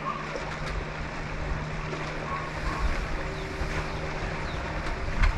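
Wind buffeting the microphone over gently lapping water, with a faint steady hum underneath. A single sharp click comes just before the end.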